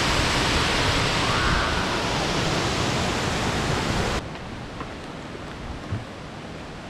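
Steady rushing of a waterfall that cuts off suddenly about four seconds in, leaving a much quieter background with a few faint ticks.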